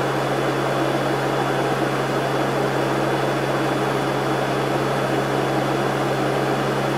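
Cockpit noise of a Lockheed L-188 Electra in flight: the steady drone of its four Allison turboprop engines and propellers, with a low, even hum under a constant rush of noise.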